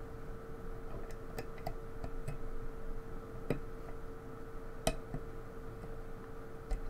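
Small, irregular metal clicks and taps of lock picks and a tension tool working in a lock's keyway, over a faint steady hum.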